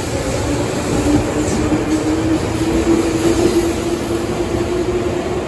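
Tobu 200 series limited express electric train (set 204F) pulling out past the platform, its wheels rumbling on the rails. A traction-motor hum rises steadily in pitch as the train gathers speed; the motors are driven under field-added excitation control.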